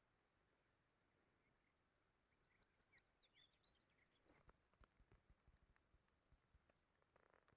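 Near silence, with a short run of faint bird chirps about three seconds in and a few faint clicks after.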